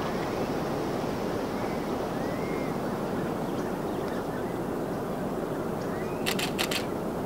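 Ocean surf washing steadily onto the beach. A few faint, short high chirps come early on, and a quick run of three or four sharp clicks comes about six seconds in.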